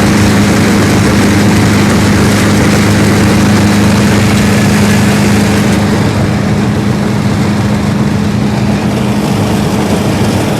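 Vintage Ködel & Böhm Köla Combi combine harvester running steadily, a constant engine hum under a broad rush of working machinery. The high part of the rush eases a little about six seconds in.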